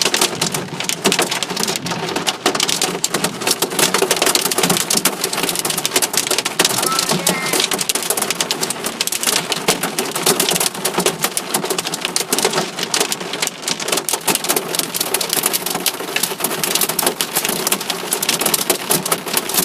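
Hail hitting a car, heard from inside the cabin: a dense, steady clatter of countless small impacts that keeps up without a break.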